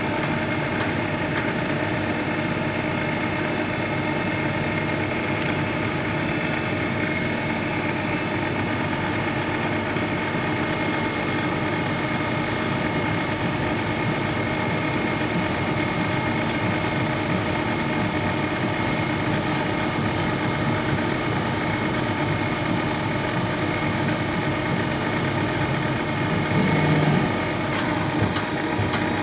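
Boley BDN160 CNC lathe running through a machining program: a steady machine hum throughout. Midway there is a run of about a dozen light, high ticks at roughly one and a half a second, and near the end a brief, louder low burst.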